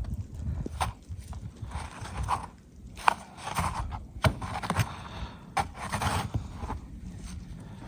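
Scraping and several sharp knocks in deep snow, with wind rumbling on the microphone.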